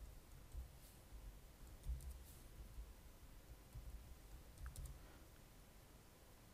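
A few faint clicks of a computer keyboard and mouse during copying and pasting of code, over faint low dull bumps.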